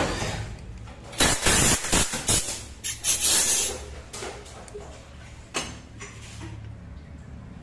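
Milling machine running with a steady low hum while cutting into an aluminium motorcycle cylinder head. Several short, loud hissing blasts come from about one to three and a half seconds in, and one more comes later.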